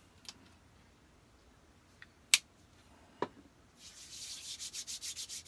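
A few sharp clicks, the loudest about two and a half seconds in, then near the end a quick run of scratchy rubbing strokes, several a second, close to the microphone.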